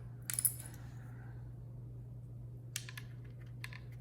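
Small plastic HVAC control-panel buttons clicking and clattering as they are handled: a quick cluster of light clicks just after the start, then a few single clicks near the end, over a steady low hum.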